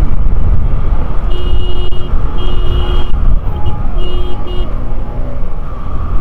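Wind buffeting the microphone and road and engine rumble on a moving motorbike in city traffic. About a second in, a vehicle horn honks twice with longer blasts, then gives three short toots.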